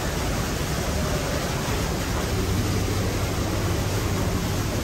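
Steady, even rushing noise of an aquarium hall's ambience, with a low hum underneath.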